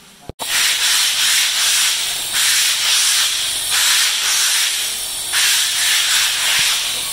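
Loud, steady hissing noise that swells and eases in long surges every second or two, with no clear motor tone.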